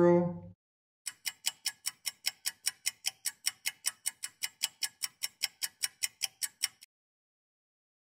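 Fast, even clock-style ticking, about five ticks a second, running for about six seconds and then stopping suddenly: a countdown ticking effect.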